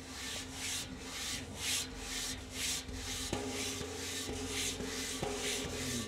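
A large iron temple gong being rubbed by hand, in rhythmic rubbing strokes about two a second, with a faint steady hum ringing under them.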